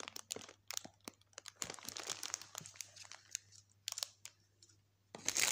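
Cellophane wrapping on packaged cosmetics crinkling as it is handled: scattered faint rustles and clicks, then a louder burst of crinkling near the end.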